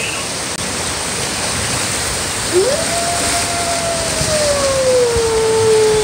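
Steady rush of whitewater in a raft ride's channel. About two and a half seconds in, an animatronic wolf's recorded howl rises sharply, holds, then slowly falls.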